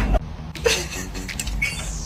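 Brief, scattered high chirps and squeaks from an animal, the loudest one just over half a second in.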